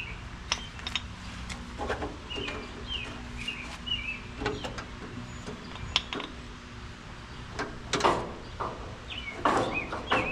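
Scattered knocks, clinks and scraping from hand tools and bolt hardware being handled while fitting a 1928 Ford Model A's body blocks, with two louder scrapes near the end. Birds chirp now and then over a steady low hum.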